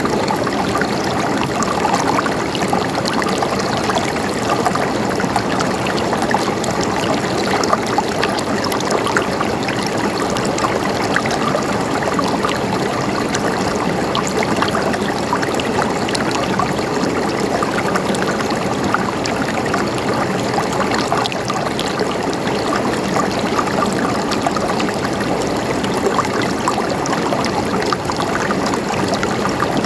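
Stream water flowing and trickling over stones, a steady babbling with many small splashes.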